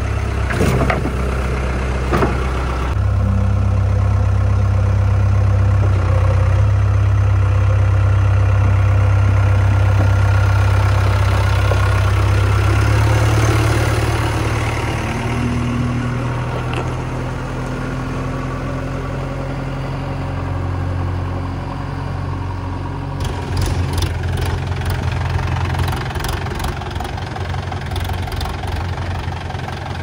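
Heavy diesel engine running steadily, louder for the first half and then easing off. A faint rising whine comes in around the middle, and near the end there is a run of sharp knocks and clatter.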